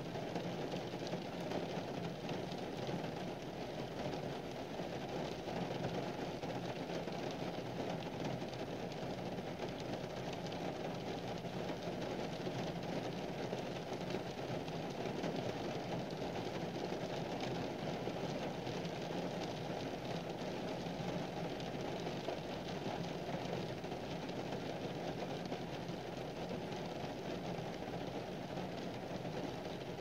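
Steady rain falling on an umbrella: a dense, even patter of drops that keeps up without a break.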